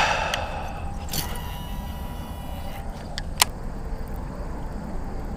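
Buzzbait being retrieved on a baitcasting reel, its blade churning across the water's surface. A thin high whine runs from about one to three seconds in, and a sharp click comes about three and a half seconds in.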